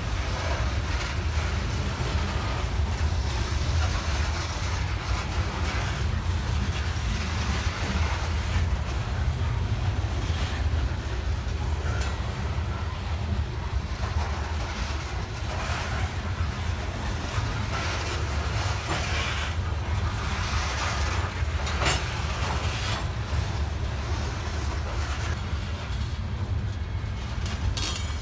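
Loaded coal hopper cars rolling past close by: a steady low rumble of steel wheels on the rails, with a few sharp knocks.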